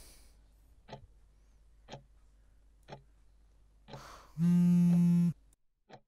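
A clock ticking about once a second, and about four and a half seconds in a mobile phone vibrating on a bed for just under a second with a loud steady buzz, signalling an incoming call.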